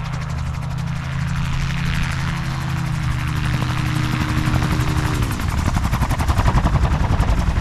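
Gyrocopter approaching: a steady engine and propeller note that drops in pitch about five seconds in, then a rhythmic rotor chop that grows louder as it nears.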